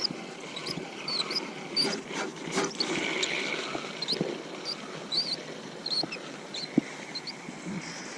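Small birds chirping in short, repeated high calls, over rustling and light knocks close to the microphone.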